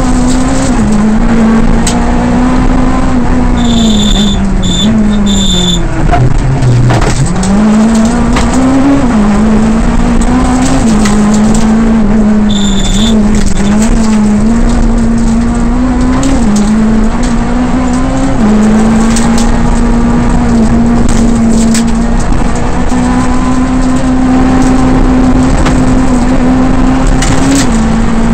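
Škoda Fabia Kit Car rally car engine heard from inside the cockpit, running hard at high revs, its pitch stepping with quick gear changes. About six seconds in the revs drop sharply for a corner and then climb back up. Sharp clicks and knocks come through, and a short high beep sounds three times early on and once more around the middle.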